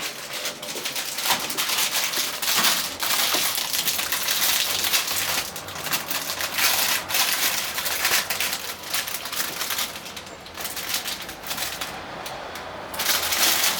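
Plastic packaging being handled and pulled open, crinkling and crackling continuously, with a short lull near the end.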